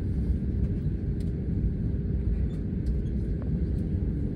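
Airbus A320neo cabin noise as the airliner starts moving off the stand: a steady low rumble with a steady mid-pitched hum running through it, and a few faint clicks.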